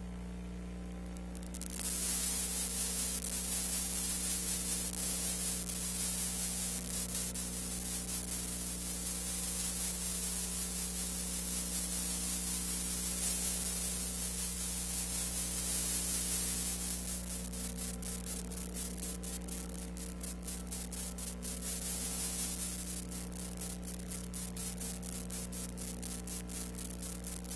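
Steady low electrical hum under a loud even hiss that starts about two seconds in, with fine crackle setting in from about two-thirds of the way through: the noise floor of an old film transfer, with no scene sound.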